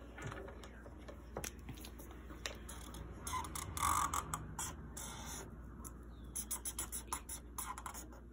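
Felt-tip marker scratching across paper in repeated back-and-forth colouring strokes, with a quick run of strokes near the end.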